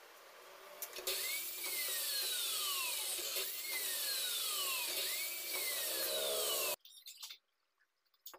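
Electric mitre saw running and cutting thin wooden strips, with a whine that drops in pitch three times, about two seconds apart. It stops abruptly near the end, leaving a few faint knocks.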